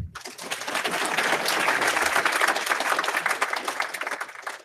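Audience applauding, many hands clapping at once. It swells over the first second and dies away near the end.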